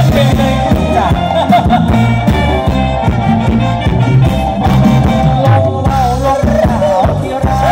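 Thai ramwong dance music played loud on stage: a steady, bouncy beat with a wavering melody line over it.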